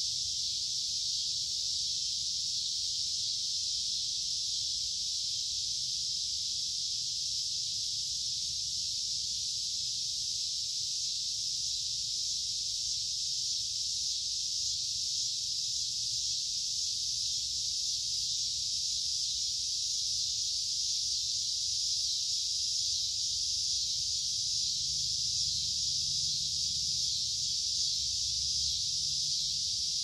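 A chorus of cicadas: a steady, unbroken high-pitched drone.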